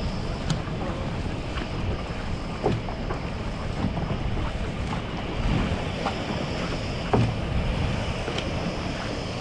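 Wind rushing over the microphone and water moving around a dragon boat on open harbour water, with brief faint ticks roughly every second and a half.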